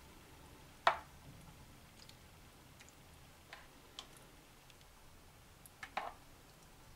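Metal spoon clicking against the sauce bowl and the glass baking dish as tomato sauce is spooned out and poured: a handful of light, sharp clicks, the loudest about a second in and two close together around six seconds.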